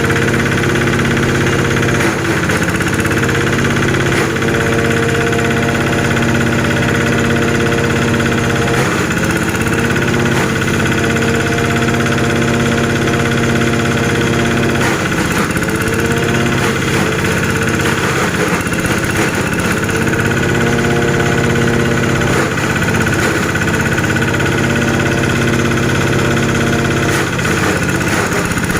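Engine-driven multi-function chopper (shredding) machine running steadily and loudly. Its engine note wavers briefly a few times.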